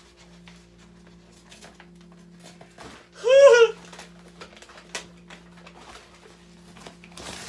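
Packaging being handled with faint scattered clicks and rustles. About three seconds in comes one short, high-pitched vocal call that rises and falls in pitch, the loudest sound, and a sharper click or rustle comes near the end.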